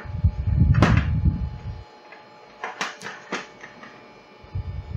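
Network cables and small plastic connectors being handled: a few sharp clicks and rustles, over a low rumble that fills the first two seconds and returns near the end.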